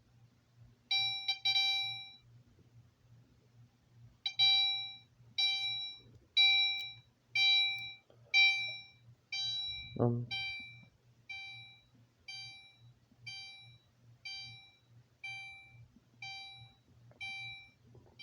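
Fire alarm horn set to chime mode, sounding its alarm signal: a few quick chime strikes near the start, then a steady chime about once a second, each strike ringing out and fading.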